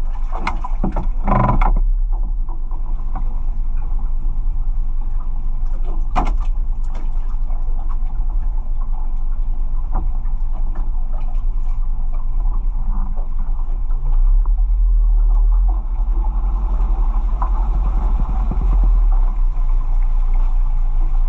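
Boat's engine running steadily with a low rumble, with a few knocks and clatters in the first two seconds and again about six seconds in.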